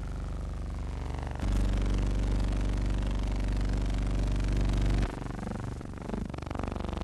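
Motorboat engine running with a steady hum, growing louder about a second and a half in and falling back about five seconds in, its pitch wavering near the end.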